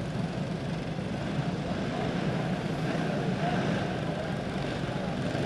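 A field of box stock Predator dirt karts running together at steady speed, their small single-cylinder engines making a continuous drone as the pack rolls toward the start.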